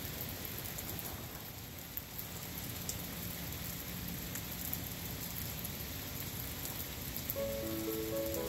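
Steady rain falling, an even hiss with a few sharper single drop hits. Near the end, soft held music notes come in over it.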